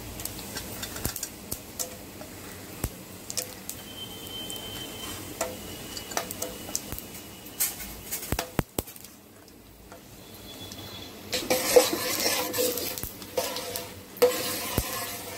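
Whole spices dropped one by one into hot oil in a kadai, with clicks of a steel plate against the pan and a light sizzle as they fry for the kurma's tempering. From about eleven seconds in, a steel ladle stirs and scrapes the spices through the sizzling oil.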